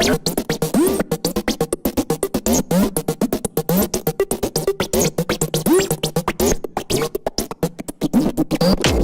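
Electronic dance music from a DJ set: fast, choppy drum-machine and synthesizer pattern with short pitch-bending stabs.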